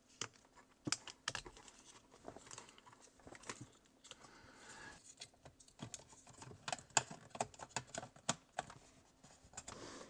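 Faint, irregular clicks and taps of small plastic parts being handled as a temperature sensor is reattached to its holder and its connector plugged in, with a brief soft rustle about four seconds in.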